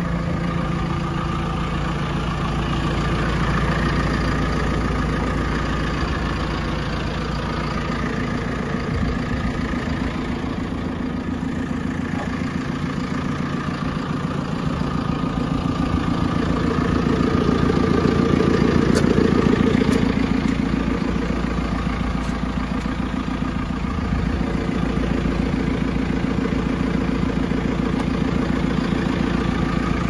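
JCB 3CX backhoe loader's diesel engine idling steadily, swelling a little louder about two-thirds of the way through.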